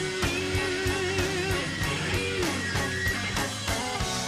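Live slow-blues electric guitar solo with long wavering vibrato notes and a slow downward string bend about halfway through, over a steady drum beat.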